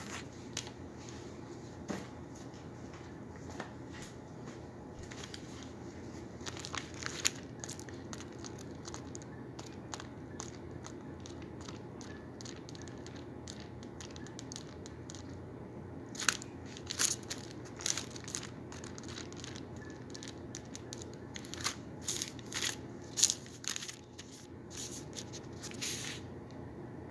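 Paper rustling and crackling in faint scattered clusters over a low steady hum, busiest in the second half.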